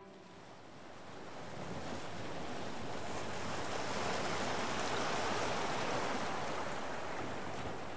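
A rushing noise that swells in over the first couple of seconds, holds, and eases slightly near the end.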